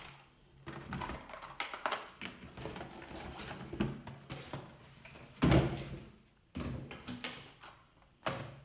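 Cardboard packaging being handled: boxes slid out of a carton and set down on a wooden tabletop, with scraping, rustling and irregular knocks, the loudest about five and a half seconds in.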